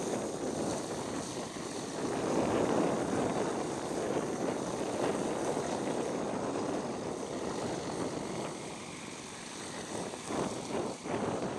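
Tractor engine running as it drives across the field spreading slurry fed by an umbilical hose through a rear splash plate, mixed with gusty wind noise on the microphone.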